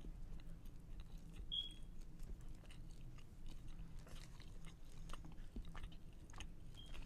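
Close-miked chewing and biting of food: a dense run of small, wet mouth clicks, with two brief high squeaks, one about a second and a half in and one near the end.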